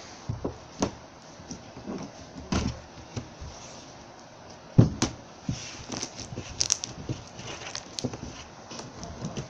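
Pink slime being stretched, squished and pressed onto a table: scattered small clicks and squelches, with a few thumps, the loudest about five seconds in.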